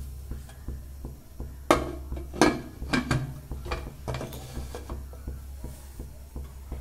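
Aluminium pressure cooker lid being fitted and closed onto the cooker: a string of metal knocks and scraping clicks, bunched between about two and four seconds in, over a low steady hum.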